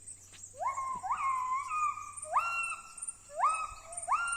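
Wild gibbon calling: a series of whooping notes, each rising quickly in pitch and held briefly, about one a second.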